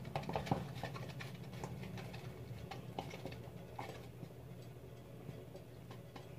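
Irregular tapping and clicking of a utensil stirring shampoo and cornstarch together into slime, busiest in the first second and thinning out, over a steady low hum.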